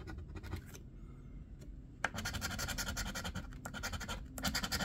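A metal coin scraping the scratch-off coating from a bingo lottery ticket in rapid back-and-forth strokes: a few light strokes at first, a run starting about two seconds in, a brief pause, then another run near the end.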